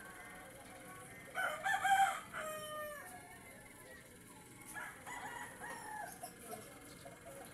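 A rooster crowing once, about a second and a half in: a long call that drops in pitch at its end. Fainter calls follow about five seconds in.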